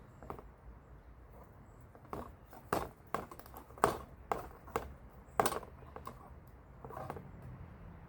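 Hand tools and small metal parts being handled, giving about eight irregular sharp clicks and taps, the loudest around the middle.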